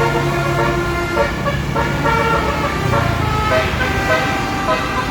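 Bus Basuri 'telolet' multi-tone air horn playing a tune of held notes that step from pitch to pitch, over the low drone of the bus.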